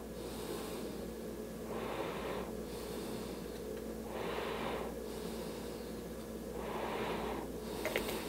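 A person breathing out through the nose close to the microphone, one soft breath about every two and a half seconds, four in all. A couple of light clicks come near the end.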